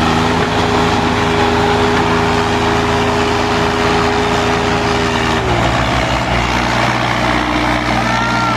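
Diesel engines of a Mahindra 585 and an Eicher 548 tractor running hard under full load while pulling against each other in a tug-of-war. The main engine note holds steady, then dips slightly about five and a half seconds in. Voices shout near the end.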